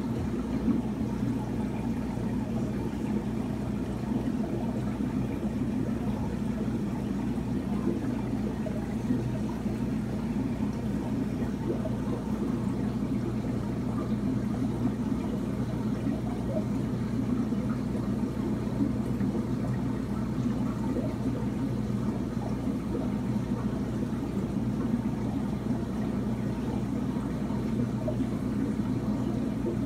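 Aquarium filter running: a steady low hum with a faint rush of moving water.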